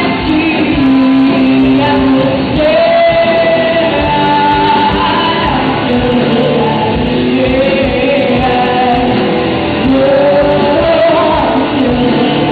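Live rock band performing a song: a sung lead vocal over electric guitars and drums.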